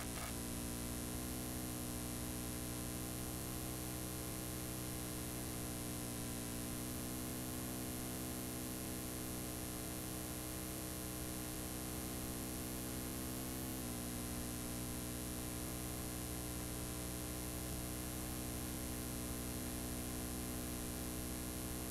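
Steady hiss and electrical mains hum from a blank, unrecorded stretch of videotape, with no programme sound. The hum shifts slightly in pitch about two-thirds of the way through.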